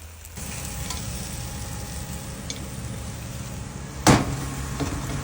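Masala spice paste sizzling as it fries in a pot and is stirred; the sizzling starts about half a second in. One sharp knock, the loudest sound, comes about four seconds in.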